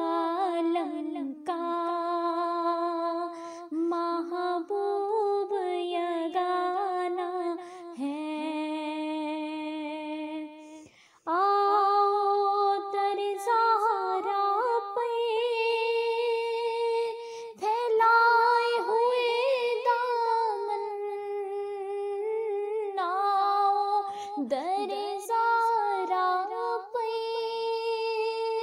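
A female voice reciting a naat unaccompanied, in long held, ornamented notes. It breaks off briefly about eleven seconds in, then carries on at a higher pitch.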